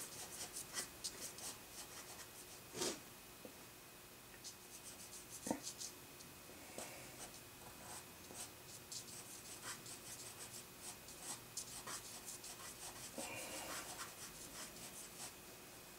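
Pencil-style eraser stroking quickly across drawing paper, lifting highlights out of the charcoal shading of the hair: faint, scratchy strokes coming in quick clusters, with a light tap now and then.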